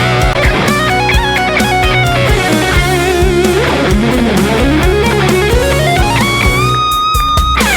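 Rock band instrumental break led by an electric guitar solo, with bent and wavering notes over bass and drums. Near the end the guitar slides up to a long held high note, then drops sharply.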